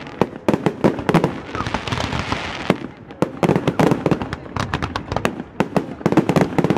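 Fireworks display: aerial shells bursting with dense, irregular pops and crackling, with a stretch of hiss about two seconds in.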